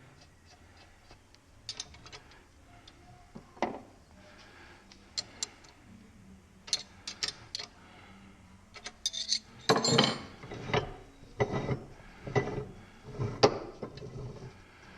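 Small metal parts clinking and knocking as they are handled during assembly: scattered light clicks and clinks at first, then a denser, louder run of knocks and scrapes from about halfway through.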